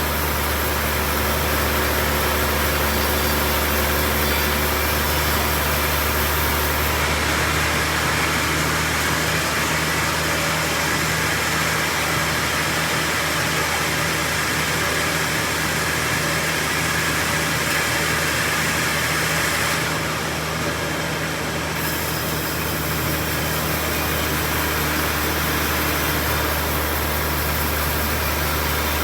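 Sawmill machinery running steadily with a constant low mechanical hum. A harsher, brighter hiss rides over it from about a quarter of the way in to about two-thirds through, then briefly drops away.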